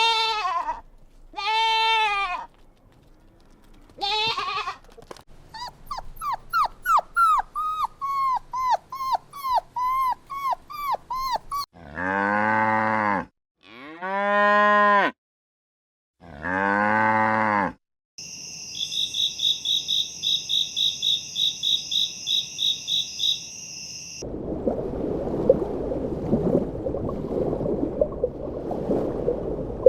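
A string of farm animal calls. In the middle, a cow moos three times, each moo long and low. Before the moos come short calls and then a fast run of rapid calls; after them come a high rhythmic trilling and a rough, noisy stretch.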